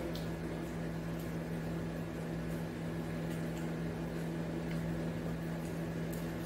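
Microwave oven running with a steady electrical hum, unchanging, with a few faint light clicks over it.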